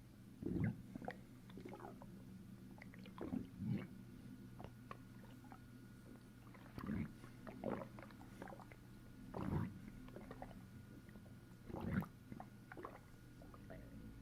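Stomach and bowel gurgling as a fist presses down on the belly: short wet gurgles every couple of seconds, over a faint steady low hum.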